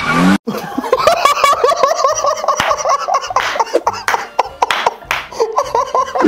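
Two men laughing hard in rapid repeated bursts, starting about half a second in after a brief break in the sound.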